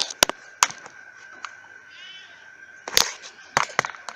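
Several sharp cracks and knocks at irregular intervals, three close together at the start and three more about three seconds in, over a faint steady high hum.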